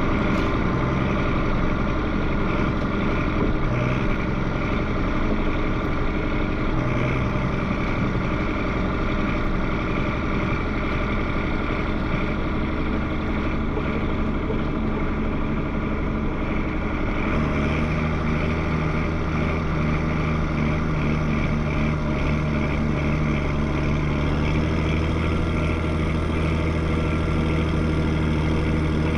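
Combine harvester's engine running steadily; about halfway through its low drone grows stronger and steadier.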